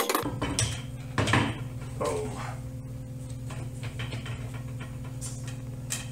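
Wooden baby gate, built from crib slats, being swung shut across a stair opening, with a few knocks in the first second or so. A steady low hum runs underneath, and a toddler makes a brief vocal sound about two seconds in.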